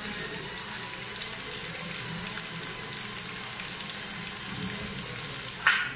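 Band saw blade wrapper machine running as it wraps a blade in paper, a steady crackling hiss, cut off by a sharp clunk near the end.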